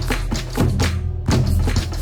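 Background music with a steady percussive beat over sustained bass notes, briefly dropping out just after the middle.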